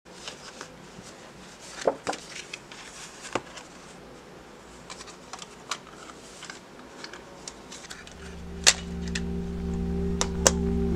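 Light taps and sharp clicks of a watercolour paper pad and metal palette tins being handled on a cutting mat, the loudest click about nine seconds in. Background music fades in during the last few seconds.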